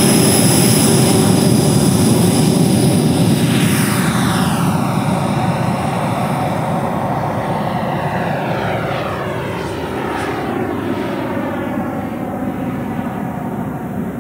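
A 120 mm JETFAN-120 PRO electric ducted fan, driven by a HET 800-73 motor, running at high power through a model jet's takeoff and climb-out: a loud rush of air with a high, steady fan whine. The sound fades gradually as the jet climbs away, and it sweeps and wavers as it goes.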